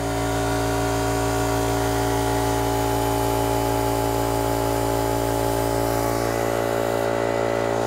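Compressed air blowing out through the open tank drain of a Makita air compressor and down a rubber hose extension: a steady, loud hiss with a strong hooting tone, as the tank is drained of moisture.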